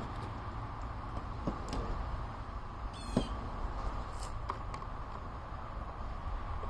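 Faint clicks and light knocks of parts being handled over a steady low background hum, with one short, high, wavering squeak about three seconds in.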